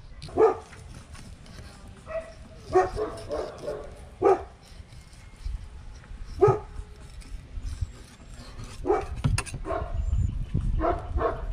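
A dog barking: several short barks at irregular intervals.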